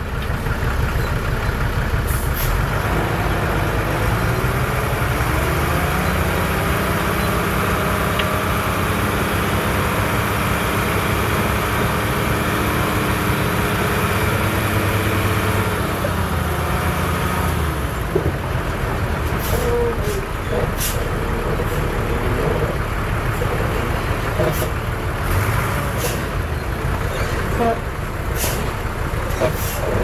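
Heavy diesel earthmoving machine engine revving up under load, holding, then dropping back about halfway through. Followed by a series of sharp metallic clanks.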